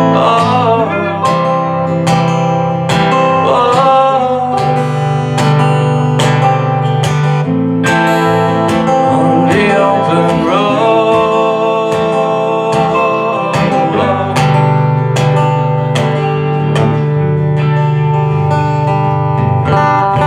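A live band playing an instrumental stretch of a country-rock song: strummed acoustic guitar over a steady beat of drum hits about twice a second.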